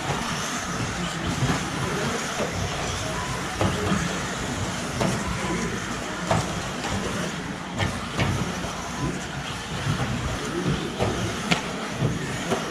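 A pack of electric 1/10-scale RC buggies racing on a clay track. The cars run steadily, with scattered sharp clicks and clacks from landings and contacts.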